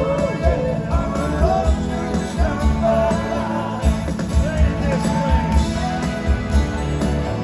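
Rock band playing live: a steady drum beat under guitar, bass and a wavering melodic line.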